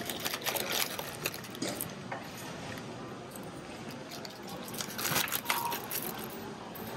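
Plastic-wrapped packs of seaweed snacks crinkling as a hand pulls them from a supermarket shelf, and crinkling again about five seconds in as they are laid in a shopping cart. In between there is the steady low rattle of the cart rolling.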